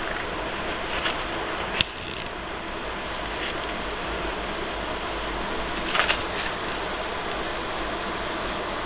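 Steady hiss with a few short clicks and rustles, near two seconds in and again near six seconds in, as the pages of a spiral-bound album are turned.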